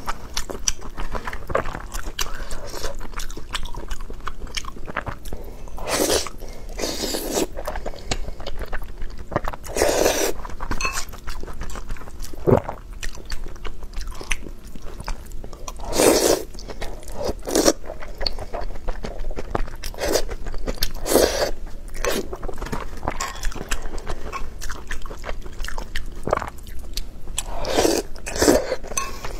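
Close-miked eating: a person chewing and biting food, with wet mouth sounds and a louder burst every few seconds.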